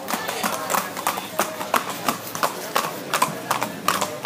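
Hooves of two ridden horses clip-clopping at a walk on a paved street, a steady run of about three sharp hoof strikes a second.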